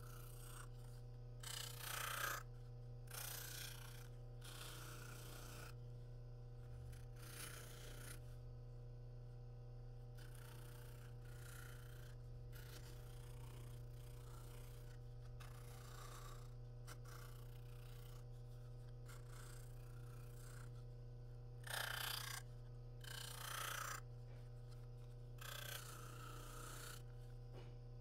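RIKON bench buffer running with a steady low hum. The edge of a KYDEX plastic carrier is pressed against its polishing wheel in short rubbing, rasping bursts, the loudest about two seconds in and again about 22 to 24 seconds in.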